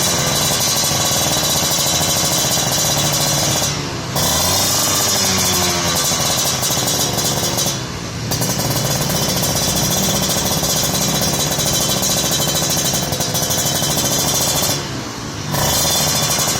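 Two-stroke motorcycle engine on a Creampie ZZ1 competition exhaust, revved hard and held high with a raspy, ringing exhaust note. The throttle drops off briefly three times: about 4 s in, about 8 s in and near the end.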